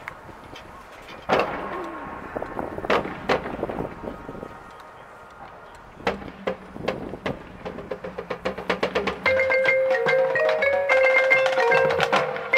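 Marching band front ensemble on mallet percussion: a few scattered ringing strikes, then a low held tone, and from about nine seconds in a louder melody of quick pitched notes on marimba and other keyboard percussion.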